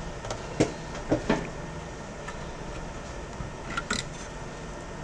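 A few light clicks and knocks, two close together about a second in and another pair near four seconds, as a circuit board and small tools are handled on the workbench, over a steady faint hum.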